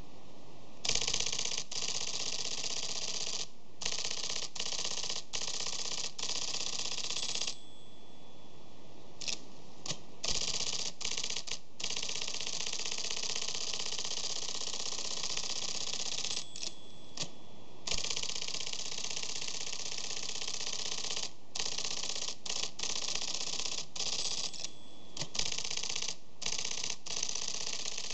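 IBM 1130 console printer, a Selectric typeball I/O Writer, typing a test: long runs of rapid, repeated typeball strikes as it prints rows of the same character, with its print solenoids tripped by hand. The runs of typing stop and start several times, with short pauses between them.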